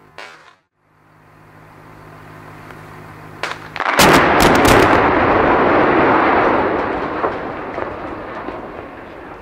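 Bridge demolition charges going off in a quick string of sharp blasts a little before halfway, followed by a long loud rumble as the concrete bridge columns come down. The rumble slowly fades. Before the blasts there is only a steady low hum.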